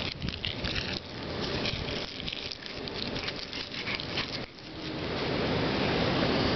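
Rain pattering: a hiss with scattered crackling ticks for the first few seconds, then a smoother, even hiss that grows louder near the end.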